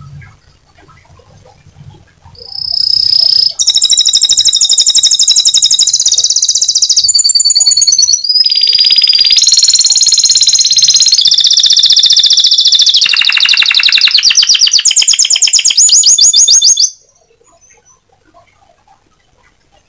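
White canary singing loudly: one long song of fast, high trills and rolls that starts about two seconds in, breaks briefly midway and stops abruptly near the end.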